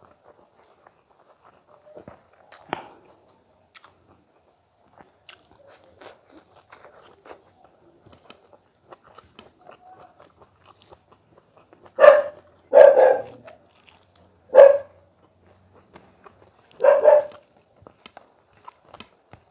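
Faint chewing and squelching of rice and curry eaten by hand, then a dog barks four times over about five seconds, starting about twelve seconds in; the barks are much louder than the eating.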